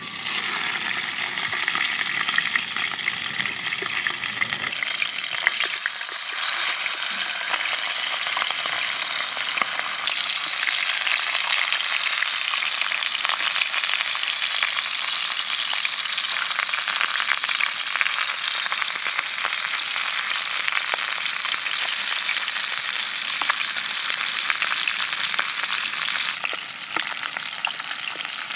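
Flour-coated fish pieces frying in hot oil in a frying pan: a dense, steady sizzle that starts suddenly as the fish goes into the oil and grows louder about five seconds in.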